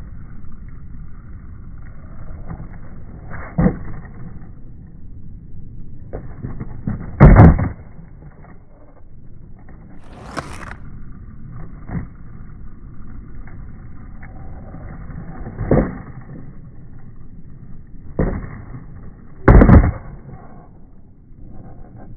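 Skateboard tricks on concrete: about seven sharp board-and-wheel impacts from pops and landings, the loudest about a third of the way in and near the end, over a steady rolling rumble of urethane wheels.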